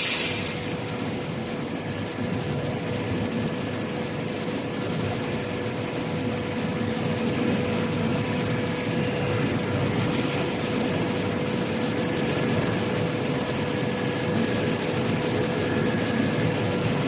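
Hot-rolling helix screw blade forming machine running steadily as it winds an alloy steel strip into a continuous spiral screw flight: an even industrial noise with a steady hum through it, and a short hiss at the very start.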